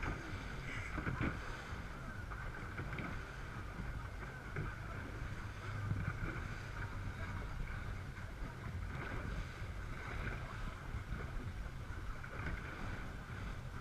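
Twin Yamaha 350 hp four-stroke V8 outboards of a rigid inflatable boat running steadily below full throttle, a low rumble under a steady rush of wind on the microphone and water along the hull.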